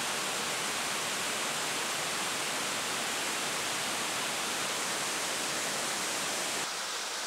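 Waterfall rushing steadily, water pouring down a rock face into a pool, dropping slightly in level near the end.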